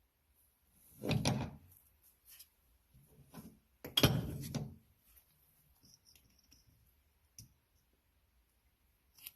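Metal brake caliper parts being handled and fitted on a workbench: two solid clunks, about a second in and about four seconds in, with light clicks and taps between them and after.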